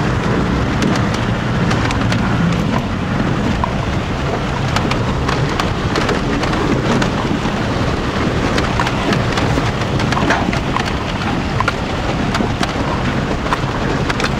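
Steady rushing and splashing of water around a four-wheel drive fording a shallow, rocky river, with many small knocks and rattles throughout.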